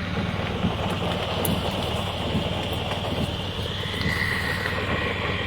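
A vehicle running on a flooded street: a steady low rumble of engine and road-water noise, with a faint high steady tone joining about four seconds in.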